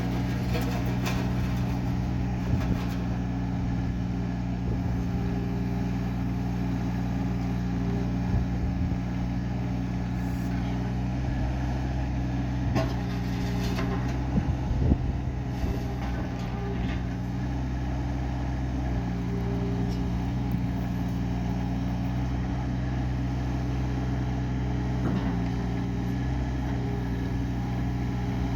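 Daewoo Solar 030 mini excavator's diesel engine running steadily, its note shifting slightly now and then, with a few short knocks, the loudest cluster about halfway through.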